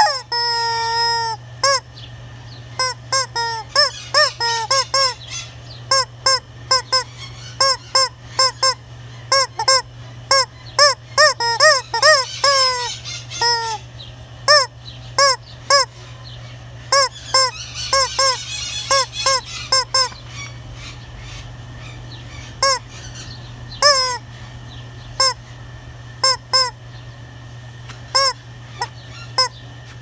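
Yellow rubber chicken toy squeezed again and again, giving short, honking squawks in quick runs, with a longer held squeal in the first second or so.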